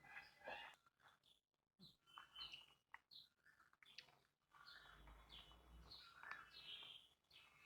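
Faint bird chirps: short calls falling in pitch, repeated many times, with a few soft clicks among them.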